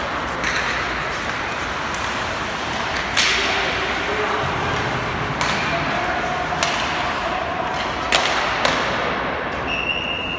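Ice hockey play echoing in an indoor rink: sharp cracks of sticks, puck and players hitting the boards and ice, about five hard hits, over a steady rink din. Near the end a short, high, steady whistle sounds, fitting a referee's whistle stopping play at the net.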